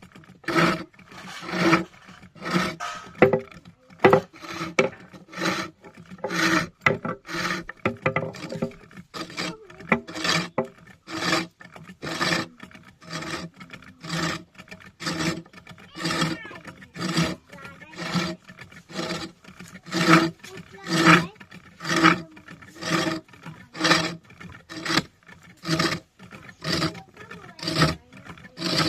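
A turning tool scraping and cutting wood on a lathe in repeated rasping strokes, about one a second, each with a rough pitched grind.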